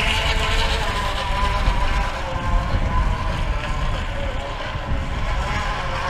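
Engine-like buzzing from a homemade noisemaker set against a BMX bike's wheel as it rolls, its pitch wavering a little, over wind rumble on the microphone.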